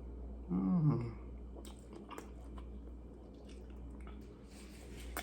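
A person chewing food close to the microphone, with scattered small mouth clicks. A short low falling hum-like voice sound comes about half a second in.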